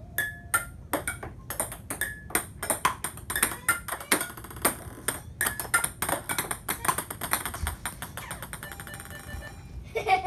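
Ping-pong balls bouncing: a long run of light, sharp clicking hits, some overlapping. They come faster and faster into a quick patter and stop near the end.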